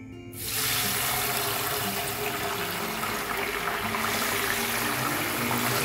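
Hot oil sizzling as raw potato sticks are dropped in to deep-fry: the sizzle starts suddenly about half a second in and goes on as a steady, loud hiss.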